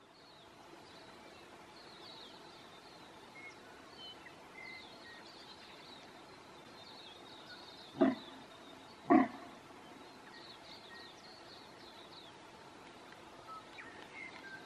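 A sika stag gives two short calls about a second apart, answering a hunter's call during the rut. Faint bird chirps sound in the background.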